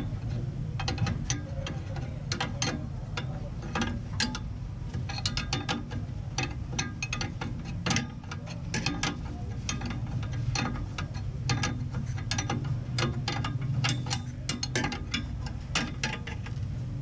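Hand tools working on metal parts: irregular sharp metallic clicks and clinks, some in quick clusters, over a steady low hum.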